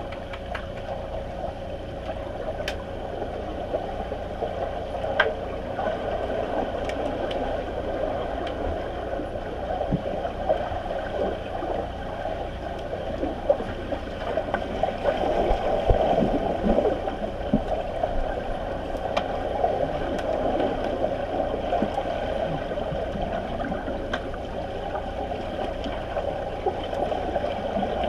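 Underwater pool sound picked up by a submerged camera: a steady, muffled rushing and gurgling of water stirred by swimmers, with scattered faint clicks and knocks, busiest around the middle.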